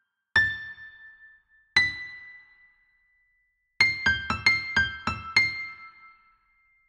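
Sparse piano melody: two single notes, the second left to ring, then a quick run of about eight notes, each dying away.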